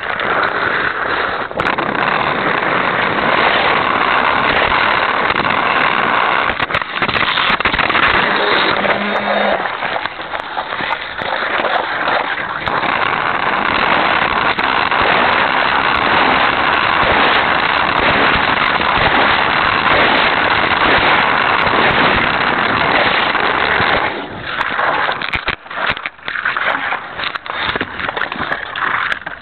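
Hot Wheels Sizzlers electric toy car racing on its plastic track, heard from a camera riding on the car: a loud, steady whir and rattle of the small motor and wheels. Near the end the steady noise breaks up into uneven knocks and clicks.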